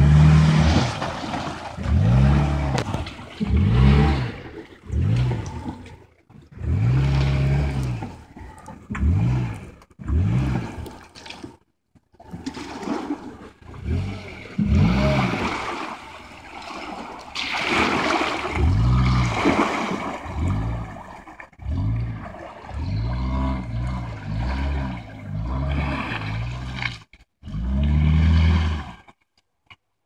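Suzuki Jimny engine revved in many short bursts, each rising and falling in pitch with brief pauses between, while its wheels churn and splash through creek water at a muddy bank.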